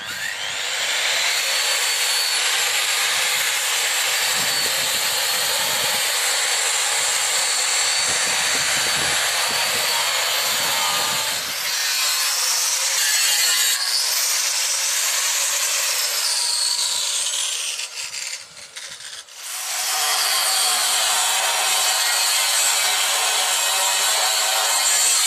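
Angle grinder cutting into the rusty steel frame rails of a manure spreader, a steady high-pitched grinding whine. About 18 seconds in it eases off for a second or so, then bites into the steel again.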